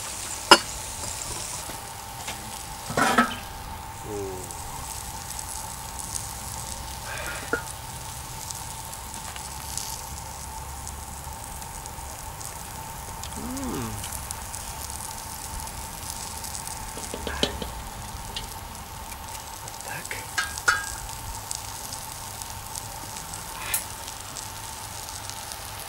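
Steady sizzling hiss of food cooking over a wood fire, with a thin steady tone running beneath. A few sharp knocks and clinks stand out: a pestle in a metal mortar just after the start, then a utensil against the cauldron.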